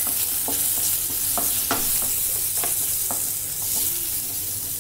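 Sliced onion, red and green capsicum and garlic sizzling in hot oil in a pan while a wooden spatula stirs them, its strokes knocking and scraping against the pan about twice a second over a steady hiss.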